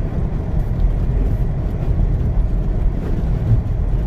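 Steady low rumble of a car being driven on a snow-covered road, heard from inside the car: tyre and engine noise.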